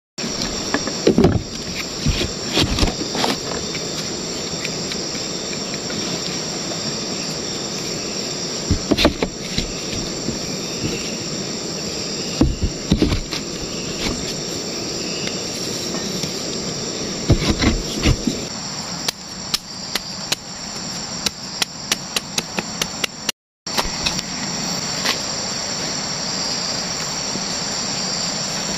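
Steady, high-pitched chorus of tropical forest insects, with scattered knocks of green sago palm stems being handled. In the second half comes a fast run of hammer taps, about three a second, as a wooden stake is driven in.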